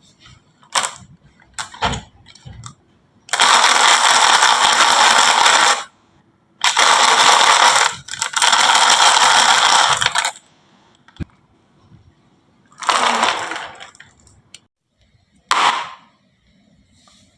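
Marbles rolling along the wooden tracks of a HABA marble run, with sharp clicks as marbles drop and knock in the first couple of seconds, then two long spells of steady rolling noise and two shorter runs near the end.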